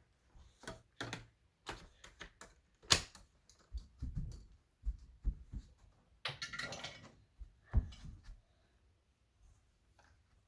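Hard plastic parts of a Shark vacuum cleaner being handled and fitted together during assembly: scattered sharp clicks and knocks at an uneven pace. The loudest come about three seconds in and again near eight seconds, and they thin out near the end.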